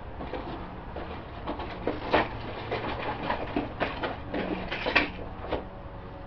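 A series of irregular sharp clicks and light knocks, with the two loudest about two and five seconds in.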